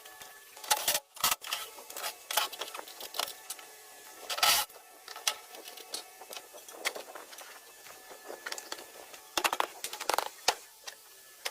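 Irregular clicks, taps and short scrapes of metal gearbox parts and hand tools being handled, with a longer scraping rasp about four and a half seconds in.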